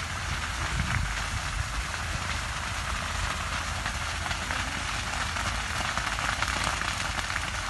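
Burning sugarcane field crackling steadily, a dense run of small pops and snaps over a low rumble.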